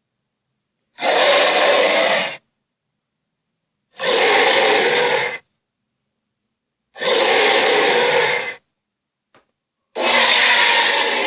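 Roar sound effects for a made-up dinosaur-like creature: four harsh, breathy roars, each about a second and a half long, spaced about three seconds apart with silence between.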